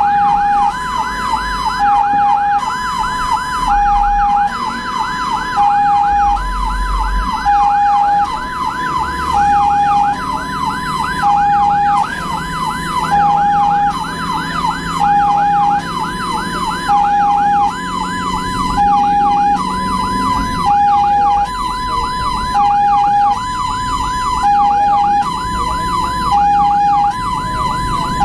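Ambulance electronic siren running steadily: a fast yelp of rising sweeps, several a second, layered over a two-tone hi-lo that alternates about once a second. A low engine and road rumble sits underneath.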